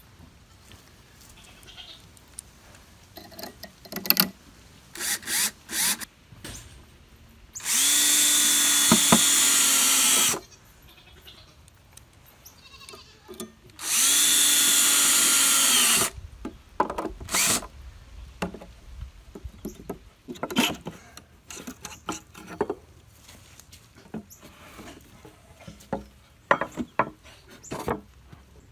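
DeWalt cordless drill driving screws through a metal strap into a wooden plank, in two steady runs of about two seconds each, roughly four seconds apart. Scattered clicks and knocks of handling fill the rest.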